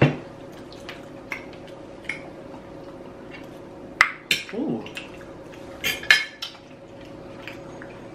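Metal forks clinking and scraping on a plate as food is picked up, in scattered single clinks with louder ones about four and six seconds in.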